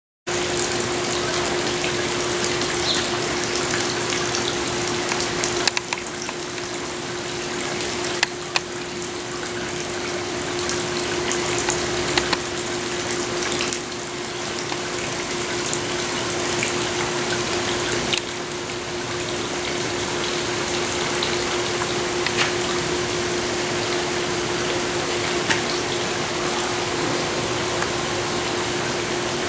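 Steady rush of running water in a Japanese garden stream, with a steady hum underneath and a few faint clicks.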